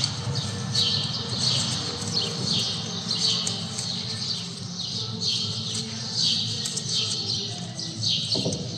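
Birds chirping over and over in short, high, falling calls, over a steady low hum, with a brief knock near the end.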